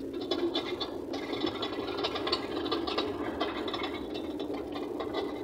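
Truck cab rattling as it drives over a rough dirt road: a dense run of small clicks and knocks over the steady drone of the engine.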